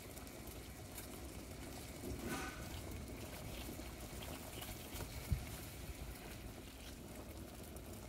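Water at a rolling boil, bubbling steadily in a stainless steel pot. About two seconds in, a ravioli drops into the water with a small splash, and a short dull thump comes about five seconds in.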